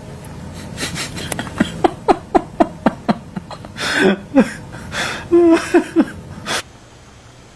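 Laughter: a quick run of short breathy giggles, about three or four a second, each dropping in pitch, then a few longer laughing sounds. It cuts off abruptly about six and a half seconds in.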